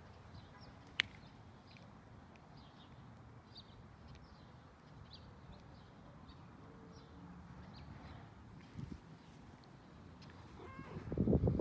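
A domestic cat meowing as it comes up to the person. Near the end, loud rustling and handling noise as the person crouches down with the phone.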